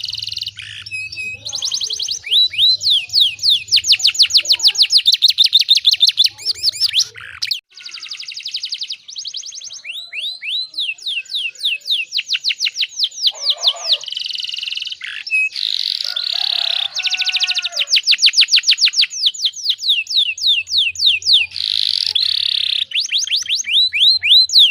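Domestic canary singing a long song of fast trills: runs of quick, evenly repeated downward-sweeping notes, several a second, switching to a new trill every few seconds with a few short breaks.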